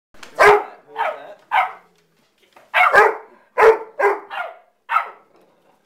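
Rhodesian Ridgeback barking: about eight loud, short barks, three, a short pause, then five more.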